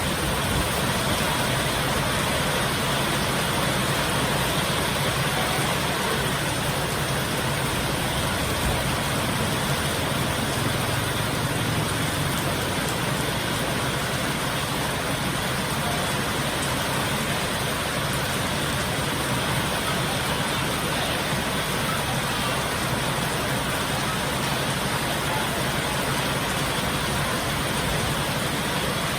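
Heavy rain pouring down in a steady, dense hiss, with no thunder claps.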